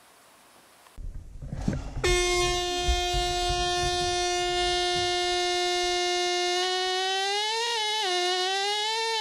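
Pneumatic air scribe (air pen) starting up after a few low knocks, then running with a loud, steady, high-pitched buzz. A few seconds later the pitch begins to waver and dip as the stylus is pressed into the rock around the ammonite's mouth border.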